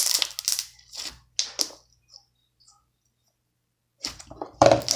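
Glitter slime being squished and stretched by hand, giving crackling, squelching pops. The sound stops dead for about two seconds in the middle, then the squishing starts again.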